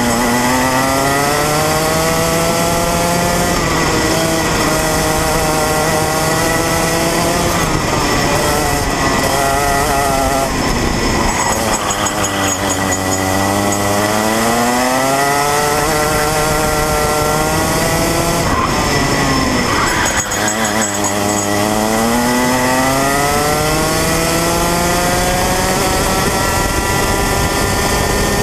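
125cc Rotax Mini Max two-stroke kart engine at racing speed, heard from on board: its pitch keeps climbing as the kart accelerates and falling as the throttle comes off for corners, with two deep drops, about halfway through and again about two-thirds in.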